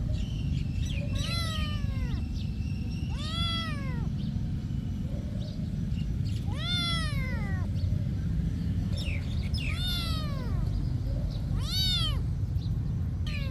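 A domestic cat meowing repeatedly, about five drawn-out meows a couple of seconds apart, each rising and then falling in pitch, over a steady low background rumble.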